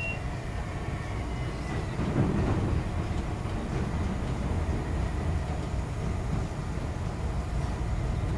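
Chicago 'L' rapid-transit train heard from inside the car as it rolls into a station: a steady rumble of wheels on rail that grows a little louder about two seconds in, with a brief clatter at that point.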